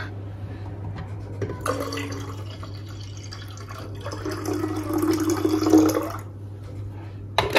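Freshly squeezed orange juice poured in a thin stream into a glass carafe, splashing and filling from about a second and a half in until about six seconds, its pitch rising slightly as the carafe fills. A few knocks near the end.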